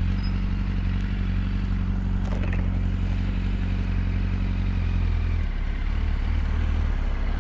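Yamaha R1 (RN12) inline-four engine running at low revs as the bike rides slowly through a left turn, heard from the rider's seat. Its note changes about five seconds in.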